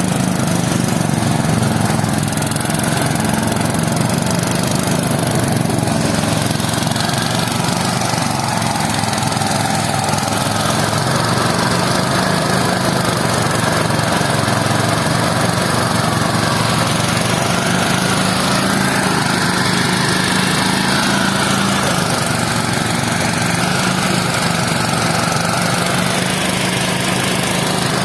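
A small engine running steadily at a constant speed, with a low hum and no let-up.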